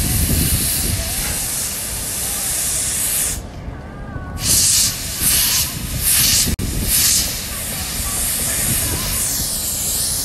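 Compressed-air blowdown hose wand on a flight deck, hissing loudly as air blows out. The flow cuts off for about a second a third of the way in, comes back in several short blasts, then runs steadily again.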